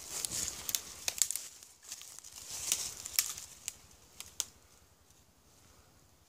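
Rustling and scraping with scattered sharp clicks: handling noise from a phone taped to a stick as it is swung about. It dies away to a faint hush about four and a half seconds in.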